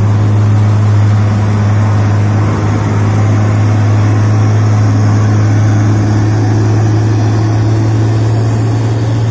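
Diesel engine of a heavily loaded Hino cargo truck pulling up a hill at steady revs, a loud low drone that holds one pitch, with tyre hiss on wet asphalt as the truck passes close by.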